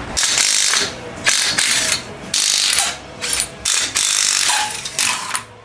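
Hand ratchet wrench worked back and forth, a quick run of clicks on each stroke, about eight strokes in a row.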